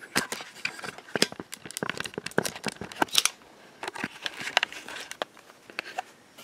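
Handling and movement noise from a handheld camera carried across a room: a string of light clicks, taps and rustles, dense for the first three seconds, then sparser.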